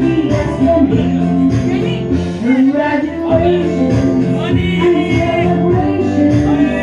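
A song with singing and instruments playing loudly over a speaker.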